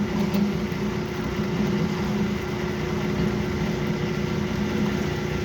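Metal lathe running steadily: a constant machine hum with a low steady tone under an even noise.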